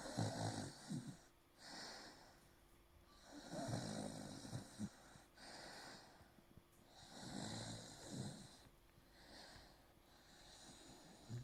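A sleeping pet snoring: three long snores about three and a half seconds apart, each ending in a short snort, with quieter breaths in between.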